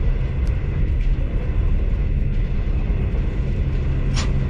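V/Line passenger train running, a steady low rumble, with one short sharp squeak or click about four seconds in.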